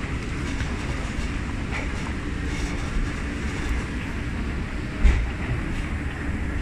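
Escalator running under the riders as a steady low rumble, with a single thump about five seconds in.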